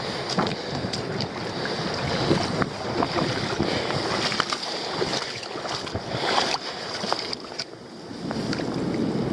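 Wind buffeting the microphone over sea water sloshing among rocks on the shore, with scattered short knocks and clicks throughout.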